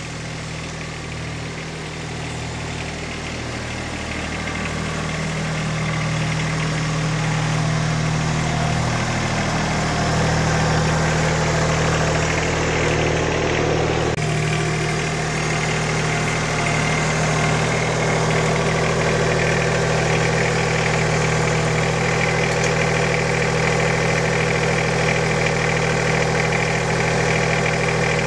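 Compact tractor engine running steadily, growing louder over the first several seconds as it comes closer. There is an abrupt break about halfway through, after which it keeps running steady and loud.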